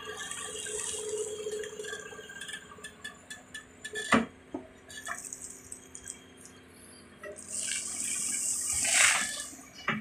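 Doosan 180W wheeled excavator running steadily while soil and gravel spill from its bucket onto a pile, a hissing pour near the start and again, louder, near the end, with a sharp knock about four seconds in.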